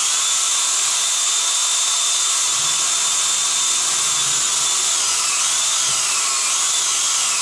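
Electric drill running steadily at high speed, boring a screw hole for a sliding shower door's center guide. Its whine drops and wavers in pitch in the last few seconds.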